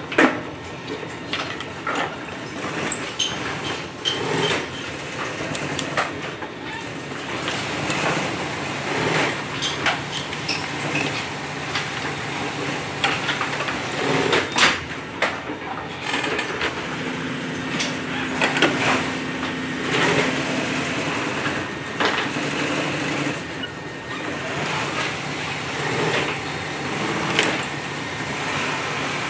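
Hand work at an industrial sewing machine: thread snips clicking, fabric handled and shifted, and scattered knocks and clicks on the machine table. A steady low hum runs under them, with a held low tone from about 8 to 15 seconds in and a slightly higher one from about 17 to 21 seconds.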